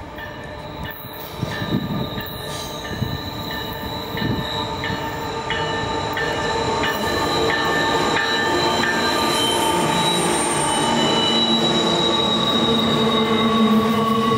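Freight train wheels squealing against the rail on a curve: steady high-pitched squeal tones that grow louder as the container cars roll past. A sharp metallic click repeats about twice a second for the first nine seconds, while the lead diesel locomotive approaches and passes.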